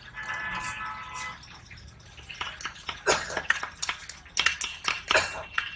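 A large knife cutting and chopping through a rohu fish head on a wooden chopping block: a quick run of sharp knocks and cracks of blade on bone and wood from about halfway through. A steady pitched tone is heard in the first second or so.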